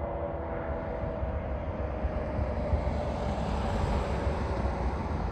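Fire engine's siren, its tone falling slowly and fading out over the first few seconds, over a low rumble that grows louder as the 2010 Pierce Arrow XT pumper and the traffic ahead of it approach.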